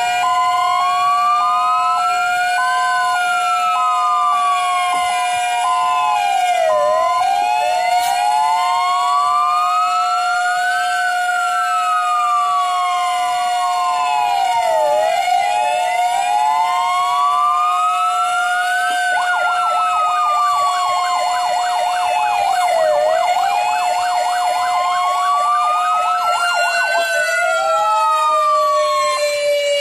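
Several sirens sound together. A fixed siren holds one steady tone while the fire engines' sirens wail slowly up and down, about once every eight seconds. About two-thirds of the way through, a fast yelp joins for several seconds, and near the end the steady siren's pitch starts to fall as it winds down.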